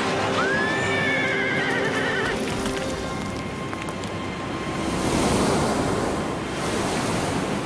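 A horse whinnies once, a long wavering call that rises and then shakes downward, over held notes of background music. Later a rush of surf swells and fades.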